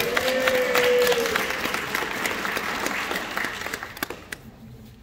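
Audience applauding, a dense patter of many hands clapping that swells about a second in and then fades out over the last second or so.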